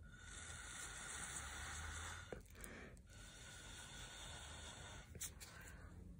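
A person blowing hard through a drinking straw onto wet poured paint, a faint breathy hiss in three long blows with short pauses between, pushing the thin cell activator out over the colours.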